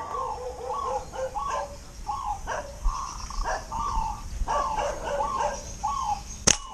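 A dog barking over and over, about two short barks a second, then near the end a single sharp snap from a slingshot's rubber bands released in a shot.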